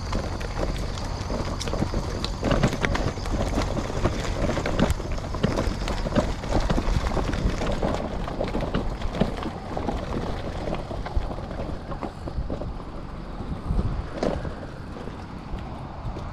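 A Brompton folding bicycle ridden over a rough gravel and grass track: its small tyres crunch on the gravel and the bike rattles over bumps in a dense run of irregular clicks and knocks. The noise thins out in the last few seconds as the bike slows to a stop.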